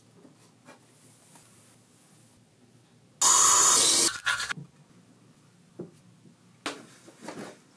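Bathroom faucet running water onto a toothbrush, a loud rush that starts about three seconds in and stops a second later. Around it, faint rustles and small handling noises.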